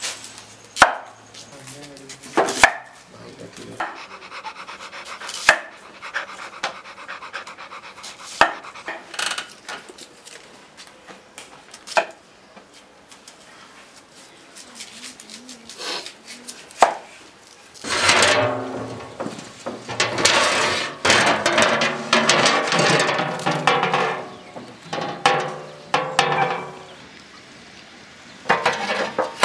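A large knife chopping onions on a wooden cutting board, with single sharp knocks every one to three seconds. From about eighteen seconds in, a louder stretch of voices takes over for several seconds.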